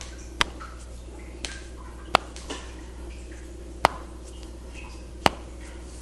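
Joints popping during a chiropractic adjustment: four sharp cracks about a second and a half apart, with a couple of fainter clicks between them.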